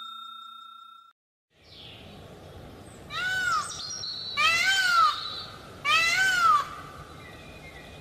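A bell ding rings out and fades in the first second. Then a peacock gives three loud, wailing calls, each rising and then falling in pitch, about one and a half seconds apart.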